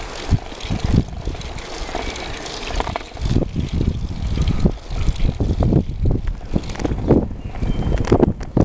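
Wind buffeting the microphone of a camera on a moving bicycle, in irregular gusts, with short knocks and rattles from the bike rolling over asphalt.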